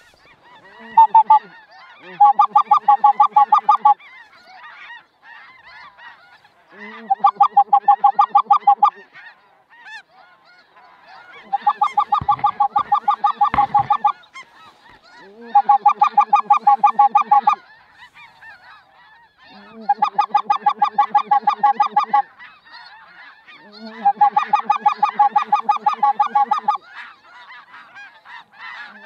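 Snow goose calling: six bursts of rapid, evenly repeated high-pitched honks, about two seconds each with short gaps between, and another burst starting at the end.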